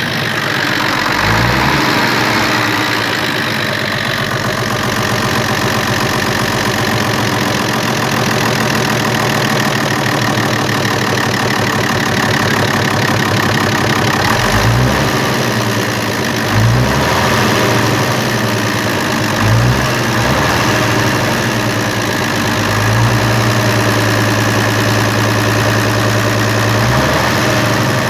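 FNM 180 truck's diesel engine idling steadily, warm, after standing about three years, with a few short low bumps near the start, around the middle and near the end.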